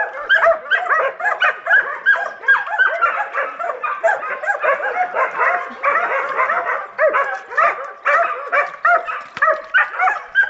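Several hunting hounds baying at wild boar, a rapid run of overlapping barks that never lets up.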